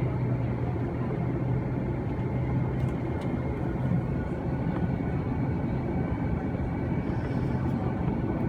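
Steady cabin drone inside an Airbus A330-300: engine and air-system hum with a strong low tone, holding an even pitch with no spool-up.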